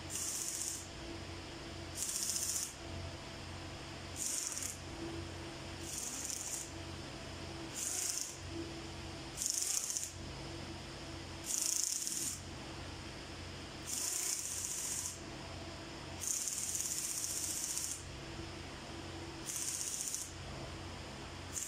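Repeated short hissing bursts from a hand-held pressurised nozzle, about one every two seconds and lasting up to a second and a half, with the longest one a little after halfway. Engine parts are being sprayed or blown over during engine assembly, and a steady low hum runs underneath.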